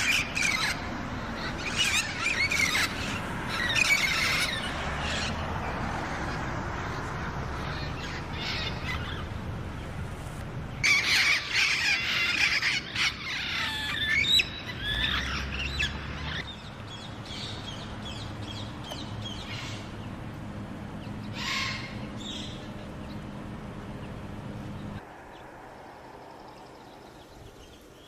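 Wild parrots calling: bursts of shrill squawks and chatter in three clusters, the loudest about 11 to 15 seconds in. Underneath runs a steady low rumble that drops away near the end.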